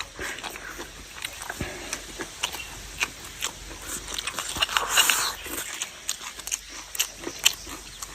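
A person chewing and biting food close up, with many short clicks and crunches.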